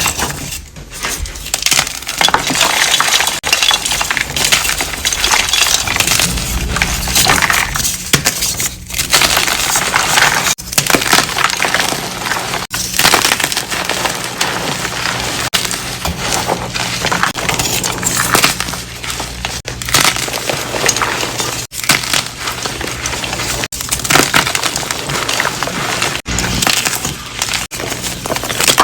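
Orange-dyed gym chalk being crushed, a dense, continuous crunching and crackling of crumbling chalk broken by a few short gaps.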